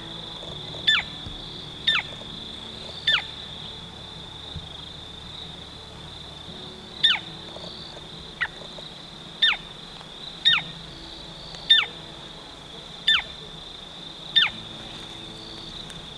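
An unidentified wild animal's call: a short, sharp note that drops steeply in pitch, repeated about ten times roughly a second apart with a pause of a few seconds near the start. Under it runs a steady high-pitched whine.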